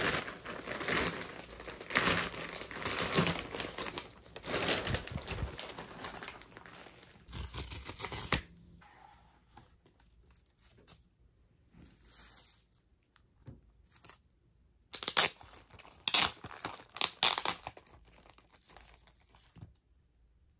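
Packaging torn open and crinkled by hand for about the first eight seconds, then quieter rustling and handling, with a cluster of sharp taps and clicks, the loudest sounds, about three-quarters of the way through.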